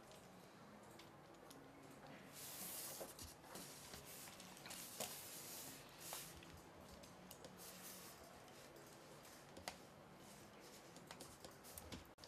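Faint handling sounds of small screws and carbon-fibre plates being fitted together and tightened with an Allen key: scattered light clicks and a few brief rustles.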